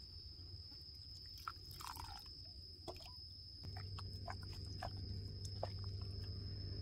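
Metal spoon stirring and scooping wet laab with snails in an enamel bowl: soft wet stirring sounds and small scattered clicks. A low steady hum comes in about halfway and stays.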